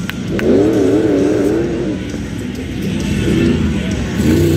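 Modified pickup truck's engine revving hard in a tuff truck run, its pitch rising and falling repeatedly, then getting louder near the end as the truck comes on.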